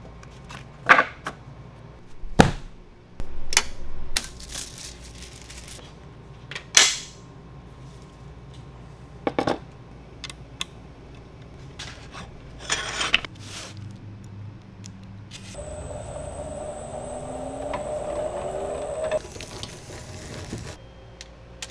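Scattered sharp clicks, taps and metallic knocks of hand work on a letterpress and its foil die, then a few seconds of steady whirring with rising tones near the end.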